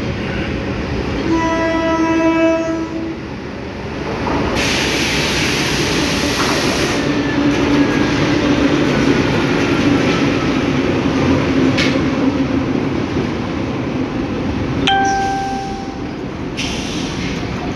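Sri Lanka Railway M4 class diesel locomotive sounding one horn blast of about two seconds, then running past hauling a second locomotive, its engine drone rising as it passes. A spell of hissy noise comes early in the pass, and a short second horn toot near the end.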